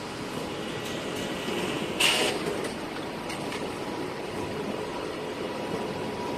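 Canon imagePRESS C850 production colour printer running while printing, a steady mechanical whir of rollers and fans with a faint steady whine. A short loud rush about two seconds in, followed by a few light clicks.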